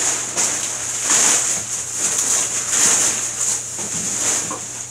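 Dry potato chips rustling and crunching in a run of crackly bursts as a pile of loose chips shifts and breaks under a moving body.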